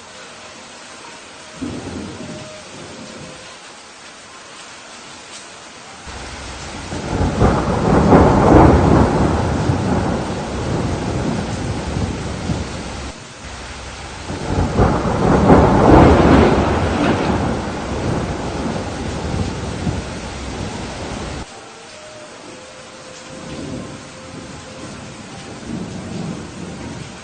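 Steady rain with thunder: a short rumble about two seconds in, then two long, loud rolls of thunder, one starting about seven seconds in and another about fifteen seconds in, each building and fading over several seconds.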